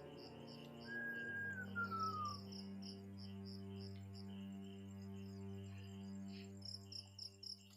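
Crickets chirping in rapid pulsing trills over a low, steady droning background music track. A whistle-like tone slides down in pitch about a second in.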